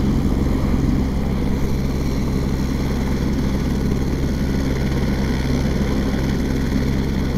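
Steady low engine drone that does not change in pitch: a helicopter running on the ground with its rotor turning, which the onlooker takes for a routine maintenance run-up, mixed with a motorcycle idling close by.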